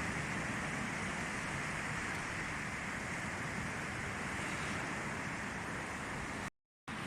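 Calm sea surf washing onto the beach as a steady even wash of noise, cut to silence for a moment near the end.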